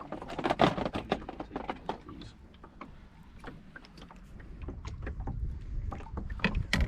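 Irregular knocks and clatter of gear being handled in a small boat, busiest in the first second. A low rumble of wind on the microphone builds in the second half.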